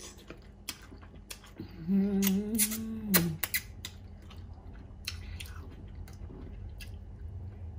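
Person eating pho close to the microphone: slurping noodles and chewing, with wet mouth clicks and smacks. About two seconds in comes a hummed, closed-mouth "mmm" lasting about a second and a half.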